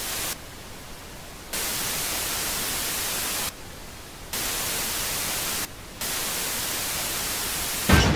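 Television static hiss, switching several times between loud and softer stretches. Near the end comes a sudden loud bang, the loudest sound.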